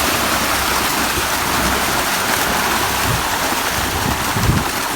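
Steady rushing water, with a few dull low thumps in the second half.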